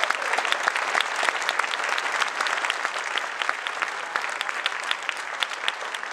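A large audience applauding, a dense, steady patter of many hands clapping that eases off slightly near the end.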